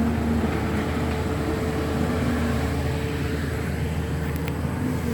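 Backhoe's diesel engine running steadily as it works.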